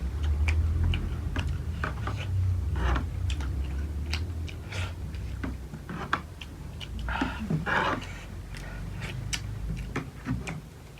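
Close-up chewing and biting of food, with many small sharp clicks and crunches, over a low rumble in the first few seconds.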